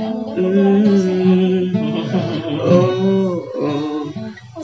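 An acoustic guitar accompanies a slow ballad, with some singing over it.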